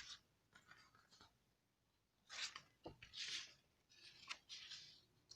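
Faint rustling of paper, a few short rustles with a soft tap about halfway through: a page of a picture book being turned.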